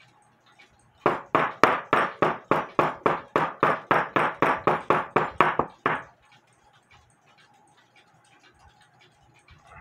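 Ball peen hammer tapping rapidly on a thin wire laid on a wooden block, about five even blows a second for some five seconds, starting about a second in. The wire is being rotated between blows to knock out its high spot and straighten a bend.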